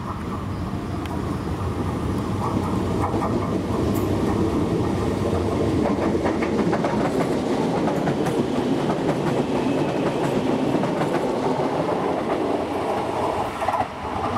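Comboios de Portugal 3400-class electric multiple unit passing close by, its wheels clicking rapidly over rail joints and points. The sound builds over the first two seconds, then holds steady.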